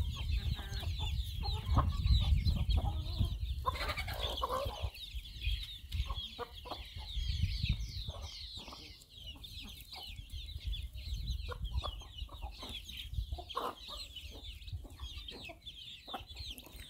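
A flock of chickens foraging: many chicks peeping in rapid high chirps throughout, with hens clucking among them. A low rumble sits under the first few seconds.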